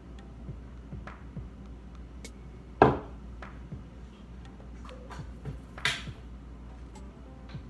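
Small clicks and knocks of plastic condiment cups, lids and a glass mason jar being handled inside a plastic tote. There is one sharp knock about three seconds in and a brighter, crackling click just before six seconds.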